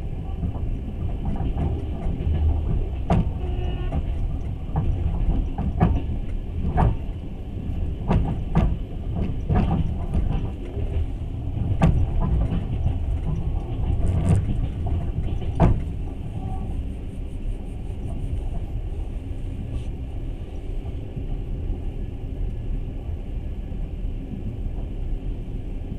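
Passenger train running, with a steady low rumble. For roughly the first fifteen seconds the wheels give a run of irregular sharp clacks over the track; after that only the even rumble remains.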